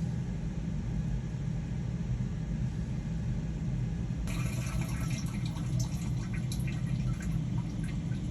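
GE top-load washer running with a steady low hum; about four seconds in, water starts splashing and trickling in the tub.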